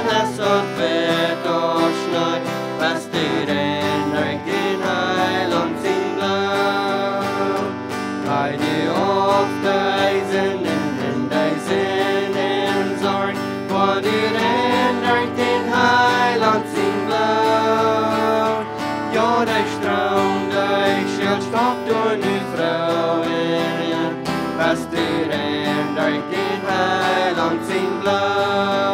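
Worship song: voices singing together over a strummed acoustic guitar.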